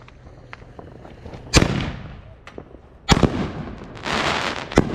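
Fireworks going off: a sharp bang about a second and a half in, another about three seconds in, then a crackling shower and a third sharp bang near the end.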